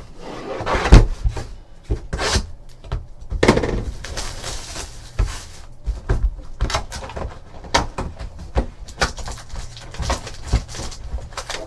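A cardboard trading-card box and its foil packs handled and opened on a tabletop: knocks and taps, the loudest about a second in, with rustling of wrapper and cardboard.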